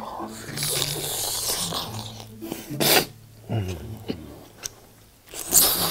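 Close-up eating sounds of someone biting into and pulling stringy melted cheese, mostly noisy mouth sounds, with a sharp burst about three seconds in and a louder one near the end. Soft background music underneath.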